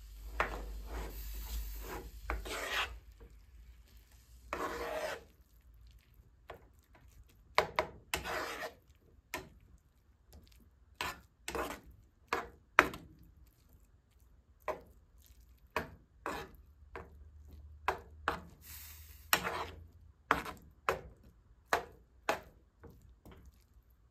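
A kitchen utensil scraping and knocking against a pan while olives are added and stirred in. A few seconds of rasping scrape at the start are followed by many short scrapes and taps at irregular intervals.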